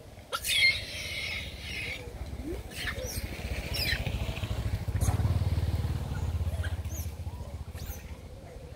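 A short, high, wavering call less than a second in, then a low engine rumble, like a small motorbike, that swells around the middle and fades, with a few faint high chirps.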